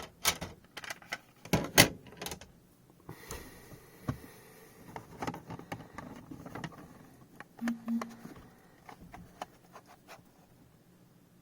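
Hard plastic graded-card slabs clicking and clacking against each other as they are handled and shuffled: a quick run of sharp clicks in the first couple of seconds, then scattered lighter taps.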